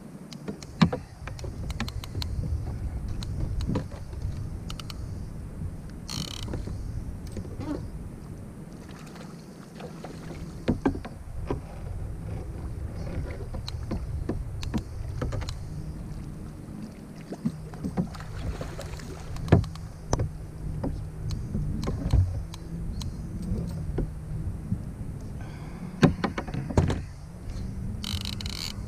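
Wind rumbling on the camera microphone and water slapping against a kayak hull during a fight with a fish on a conventional trolling reel, with scattered knocks and clicks from the rod and reel being handled. A steady low hum runs through the second half.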